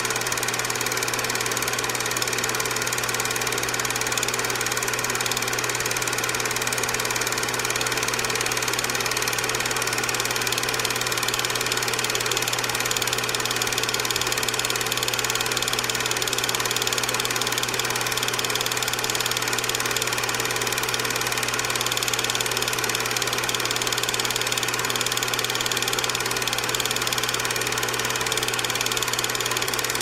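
8mm film projector running steadily: the motor whirs while the film clatters and clicks quickly and evenly through the mechanism.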